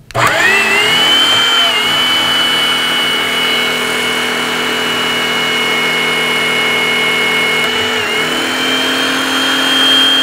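Electric hydraulic torque-wrench pump starting abruptly and running under load as it builds pressure to drive an Enerpac S1500X square-drive hydraulic torque wrench up to its target torque. A steady high whine rides over the motor hum, its pitch dipping briefly about eight seconds in and rising a little near the end.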